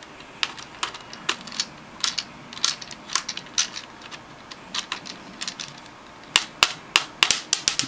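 Small screwdriver turning a stubborn screw in a plastic laptop-tablet case, giving sharp, irregular clicks a few times a second that come thicker near the end.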